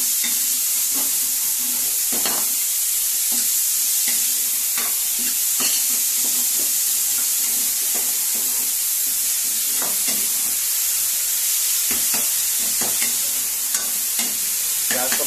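Chopped onion and green chillies sizzling in hot oil in a metal kadhai, with a metal ladle scraping and stirring them in irregular strokes over the steady hiss of the frying.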